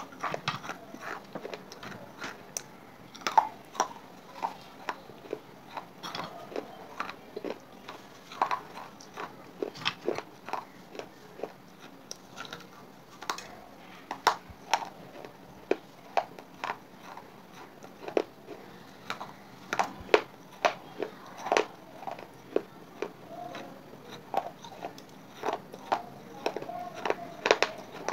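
Wet clay pot chips being bitten and chewed: a run of sharp, irregular crunches and clicks, some much louder than others.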